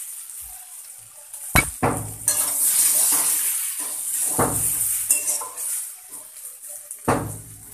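Metal spatula scraping and knocking against a metal kadai as potato, papaya and soya chunks are stirred and fried, in several separate strokes, over a steady sizzle of the frying.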